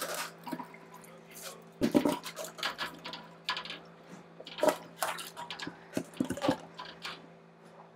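Chunks of ice dropped and splashing into a bucket of chilled water, in a string of irregular knocks and splashes over the steady hum of electric pumps circulating water for wort chilling.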